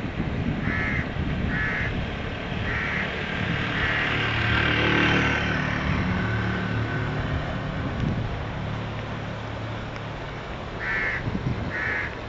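A motorcycle engine swells and fades as it passes by, loudest about five seconds in, over the steady rush of water along an irrigation canal. A crow caws four times in the first few seconds and three more times near the end.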